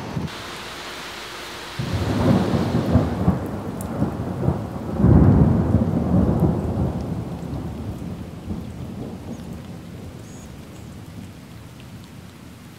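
Thunderstorm: rain hissing, then a roll of thunder that starts about two seconds in, peaks about five seconds in and slowly dies away.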